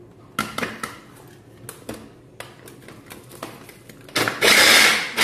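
A few clicks and knocks, then about four seconds in an electric kitchen blender switches on and runs loud and steady, chopping onion, parsley, garlic and egg.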